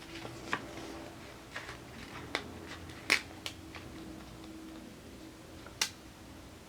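Scattered light clicks and taps of paper planner stickers being handled and pressed onto a page, the loudest a sharp click about three seconds in, over a faint steady hum.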